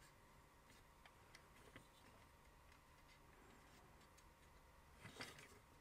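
Near silence with a few faint, scattered clicks and a brief louder rustle near the end: a hard plastic toy vehicle and its plastic roll-bar rod being handled and fitted.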